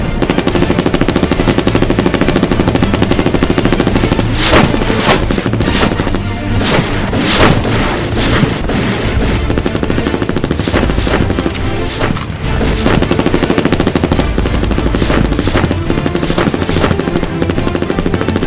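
Rapid machine-gun fire with louder single shots scattered through it, over music with a steady low bass.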